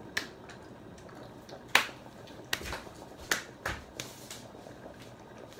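Fingers snapping: a string of sharp, irregularly spaced snaps, the loudest nearly two seconds in.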